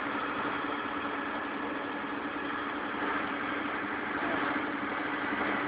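Putzmeister truck-mounted concrete pump's diesel engine running steadily under the boom's hydraulic work, with an even hum and no change in speed.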